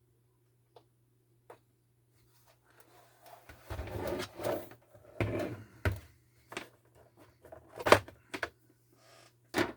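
Objects being handled: small clicks, then a rustling scrape lasting a couple of seconds, and a sharp knock about eight seconds in and another near the end, over a low steady hum.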